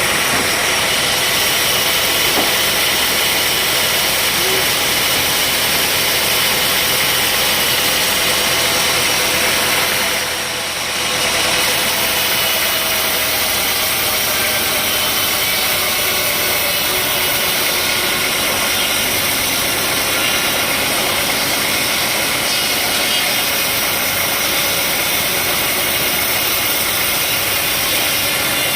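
Sawmill machinery running steadily, a loud even mechanical noise that dips briefly about ten seconds in.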